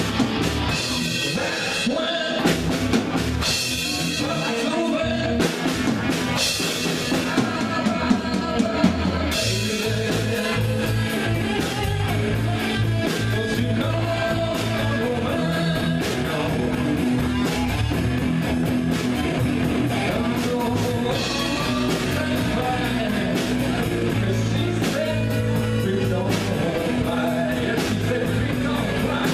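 Live rock band playing, with electric guitar, bass guitar, drum kit and a singer. About nine seconds in, the band comes in fuller, with a much heavier low end.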